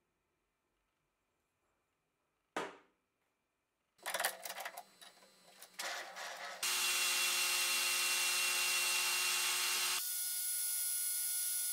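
Metal lathe: a brief swish, then irregular clatter as a round bar is fitted in the three-jaw chuck, then the lathe starts and runs steadily with a machine whine, the sound turning higher and thinner about ten seconds in.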